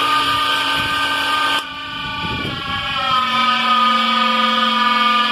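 2 CV electric motor running without its belt, a loud steady whining racket from inside the motor. About a second and a half in the sound drops abruptly and then settles into a slightly different steady whine with a low hum under it.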